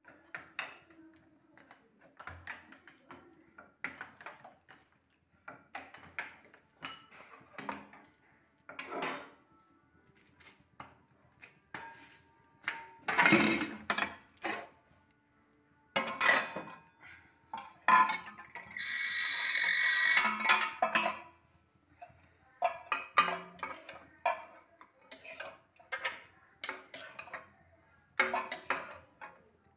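Metal cookware and utensils clinking, knocking and scraping now and then, with a steady hiss lasting a few seconds about two-thirds of the way through.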